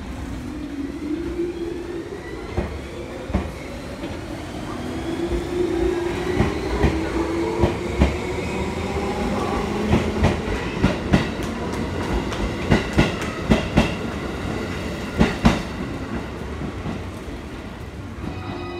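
A stainless-steel JR East commuter electric multiple unit pulls out of the station. Its inverter-driven traction motors whine, rising in pitch as the train speeds up, while the wheels click over the rail joints, faster and louder as the cars roll past.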